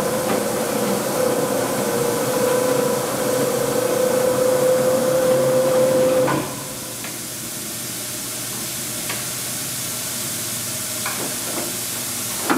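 Blanchard 22K-42 vertical spindle rotary surface grinder running with a steady hum over machinery hiss. About halfway through, the hum cuts off and the machine drops to a quieter steady running noise as the grinding-wheel spindle is stopped.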